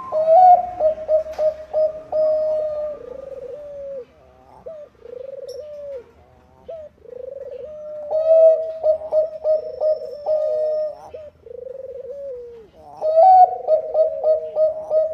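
Zebra dove (Bangkok-type perkutut) song: phrases of quick clipped notes running into longer, lower coos, repeated three times.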